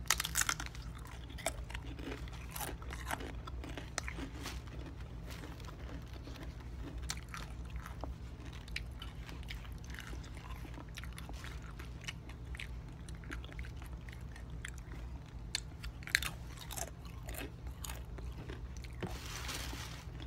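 Close-up crunching and chewing of potato chips: a run of crisp crunches, loudest right at the start and again about 16 seconds in, over a steady low hum.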